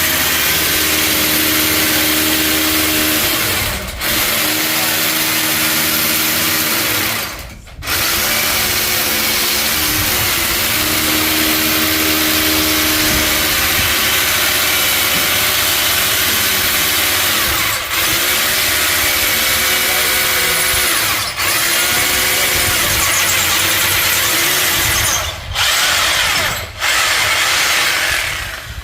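Electric power drill running in long stretches with several brief stops and restarts, drilling holes for the epoxy-set pins that anchor the wall panels.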